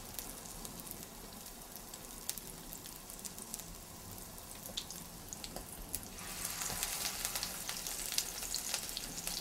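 Oil sizzling and crackling in a nonstick frying pan as green pea-and-edamame falafel patties fry, a steady hiss with small pops that grows louder about six seconds in.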